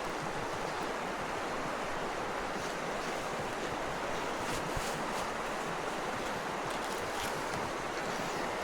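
Steady rushing outdoor noise, with a few faint crackles about halfway through and again near the end.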